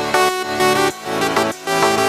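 Electronic dance background music with a steady beat and synth chords.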